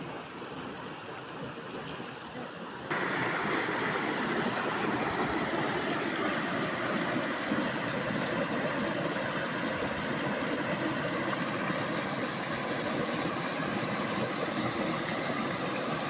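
Rushing water of a river and waterfall, a steady noise that gets suddenly louder about three seconds in.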